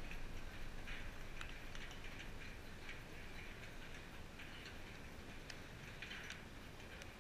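Faint outdoor ambience: short, high chirp-like sounds recur about once a second over a low, steady rumble.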